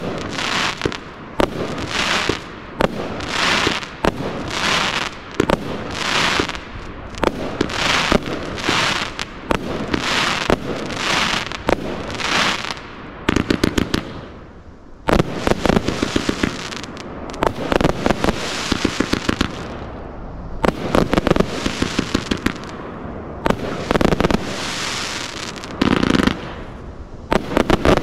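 Pyroworx 'Rapture' 80-shot, 25 mm firework barrage cake firing. For the first half there is about one shot a second, each bursting with a short hiss. In the second half there are dense runs of rapid small pops, with a brief lull between them.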